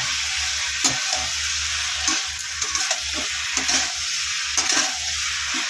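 Potato and elephant foot yam pieces sizzling in hot oil and masala in a steel kadhai while being stir-fried. A metal spatula scrapes and knocks against the pan about once a second over a steady sizzle.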